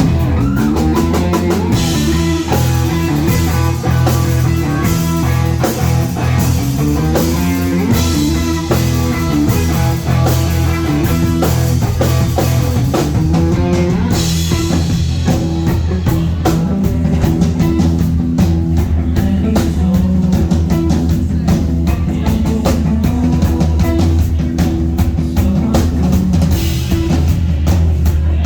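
Live rock band playing at full volume: drum kit pounding a steady beat under electric guitars.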